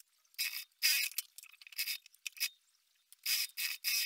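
Industrial sewing machine stitching a seam in short, stop-start bursts as layered fabric is fed under the presser foot, with the rustle of the fabric being guided by hand.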